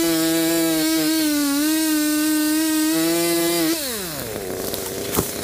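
Chainsaw engine running at high revs in a steady high note, then slowing about four seconds in, its pitch falling steeply. A single sharp click comes near the end.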